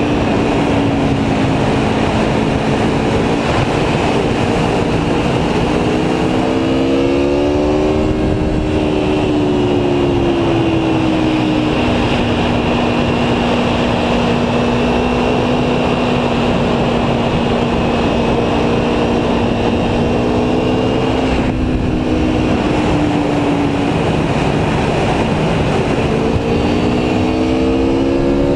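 Aprilia Tuono V4 1100's 65-degree V4 engine running steadily under way, with wind rushing past the microphone. The engine pitch rises about a quarter of the way in, eases back, dips briefly past the two-thirds mark and climbs again near the end.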